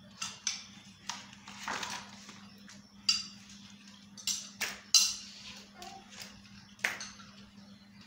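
Irregular light clicks and clacks of an LED tube light's long housing and LED strip being handled as the strip is slid into the housing, the sharpest clack about five seconds in.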